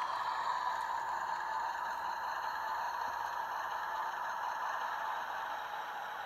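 Märklin HO-scale model diesel locomotive and its freight cars rolling on metal track: a steady whirring hum of the motor and wheels that fades slightly as the train slows almost to a stop.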